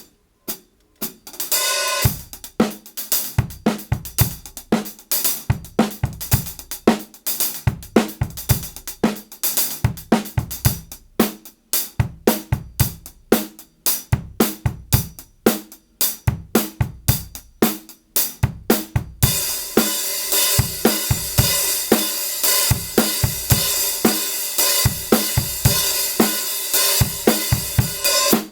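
Kingdo Artist Classic 14-inch hi-hat cymbals played in a drum-kit groove, with short, tight chick strokes over kick and snare beats. About two-thirds of the way in the hats open into a continuous washy sizzle under the beat.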